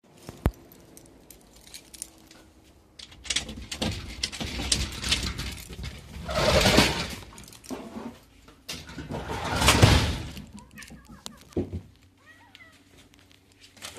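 Keys, then a lattice-and-glass sliding entrance door being slid open, with two loud scraping runs. Near the end a cat meows faintly.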